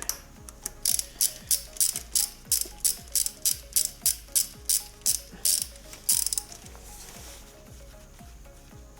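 Ratchet wrench clicking in a steady rhythm of about three clicks a second as a fastener is turned, stopping about six seconds in.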